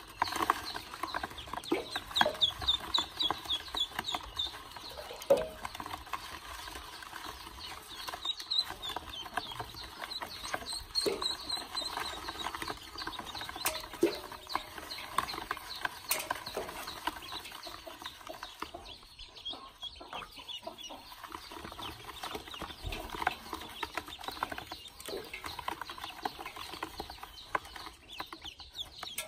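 A group of ducklings peeping rapidly and without a break, with short sharp splashes and knocks from them paddling in water in a metal basin.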